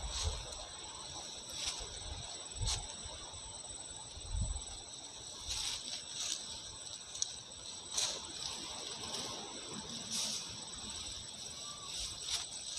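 Insects trilling in a steady high-pitched chorus, over scattered crackling footsteps and rustling as someone pushes through dry grass and brush.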